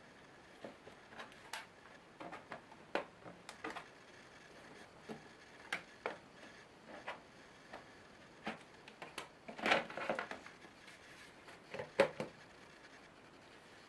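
Scattered clicks, taps and knocks of plastic on an Asus K75VJ laptop's underside as a plastic pry tool works along the base and the battery is released and taken out, with a louder rattling cluster about two-thirds through and a sharp knock shortly after.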